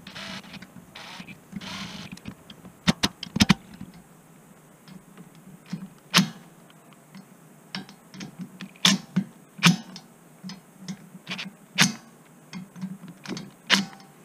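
Cordless DeWalt power driver running in short bursts, spinning in the valve cover bolts, followed by a scatter of sharp metallic clicks and knocks.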